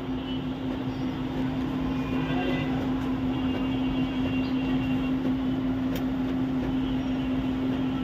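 Epson L3210 ink-tank printer running a photocopy: a steady motor hum with faint higher whines in stretches as the mechanism works, the printed page feeding out near the end.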